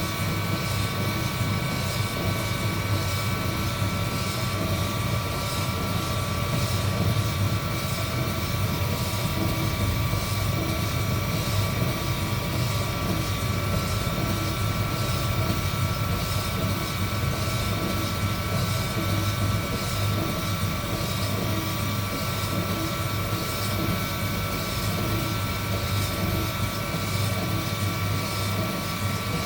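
Heat gun blowing hot air over roasting coffee beans: a steady fan hum with an even high whine, unchanging throughout.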